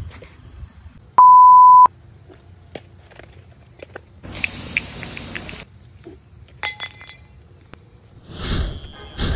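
Edited-in comedy sound effects: a loud, steady single-tone beep about a second in, lasting just over half a second, then a bright hissing burst of more than a second near the middle, a few clicks, and a short swell of noise near the end.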